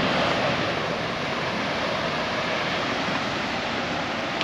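Steady rushing wash of sea surf breaking against rocky shore, an even noise with no distinct events.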